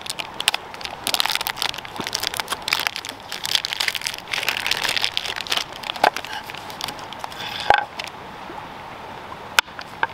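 Plastic cheese wrapper crinkling for several seconds as it is peeled back from the block. Then a few separate knocks and one sharp tap near the end as a knife cuts a slice of cheese against a cutting board.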